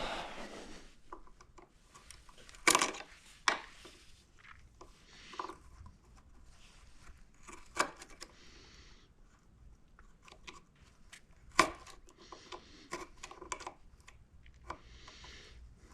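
Small pliers working at an electric scooter's blinker wiring and plastic housing: scattered sharp clicks and taps, with brief scraping and rustling in between.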